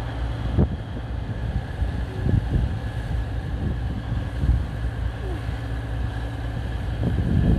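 Two coupled diesel multiple units passing on the tracks below, a steady low rumble of engines and wheels on rail with a few sharp clacks.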